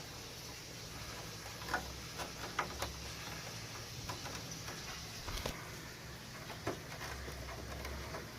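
Scattered light clicks and knocks of plastic parts of a split-type air conditioner's indoor unit being handled and fitted back into place, over a low steady hum.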